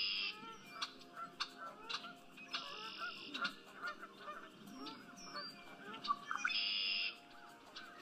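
Male red-winged blackbird singing: its buzzy, trilled song phrase comes twice, about four seconds apart, with many short chirps and call notes between.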